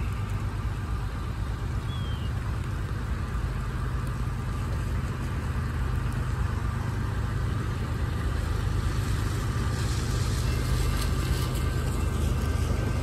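Steady low motor-vehicle engine rumble under a continuous hiss of rain. A swish of tyres on wet pavement builds near the end.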